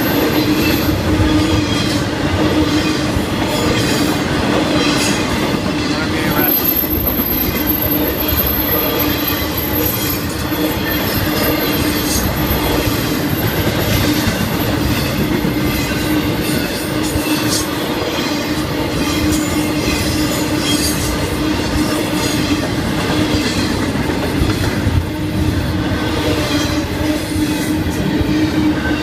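Florida East Coast Railway freight train's cars rolling steadily past: a continuous rumble and clatter of steel wheels on the rails, with a steady tone running through it.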